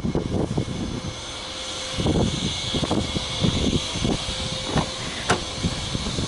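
Irregular footsteps and handling thumps over a steady mechanical drone, then a sharp click about five seconds in as the car's driver's door is unlatched and opened.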